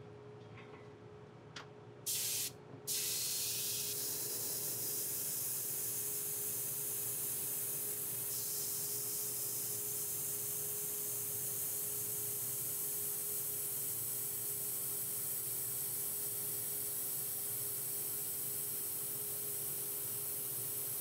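Steady, loud spraying hiss that starts about three seconds in after two short hissing bursts, over a faint steady machine hum.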